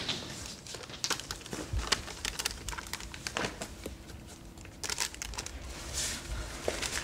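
Paper rustling and crinkling, with scattered light clicks and taps, as of a textbook's pages being handled.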